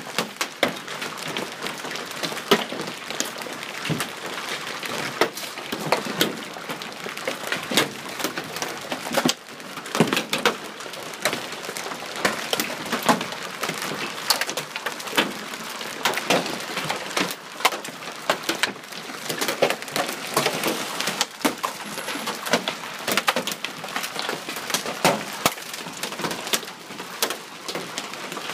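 Hailstones pelting a wooden deck and its surroundings: a dense, irregular clatter of sharp cracking impacts over a steady hiss of falling hail and rain.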